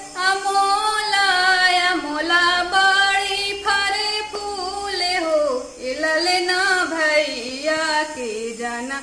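A woman singing a Magahi sohar, the folk song sung at a child's birth, in a single voice. She holds long notes that bend up and down, with a brief dip in loudness about halfway through.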